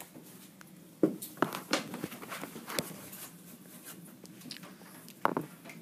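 Scattered light knocks and taps, about five, as children handle small whiteboards and dry-erase markers and hold the boards up, over a quiet classroom background.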